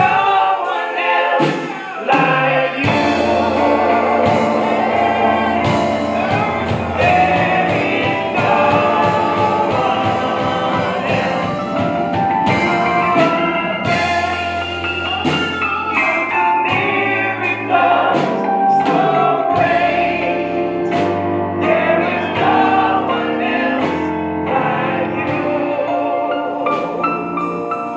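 Gospel praise team of several singers with microphones singing together over instrumental backing; low bass notes and drum strikes join about three seconds in.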